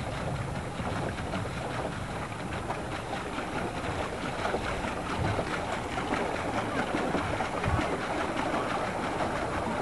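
Steady splashing and lapping of choppy lake water, with a few low rumbles of wind on the camcorder microphone.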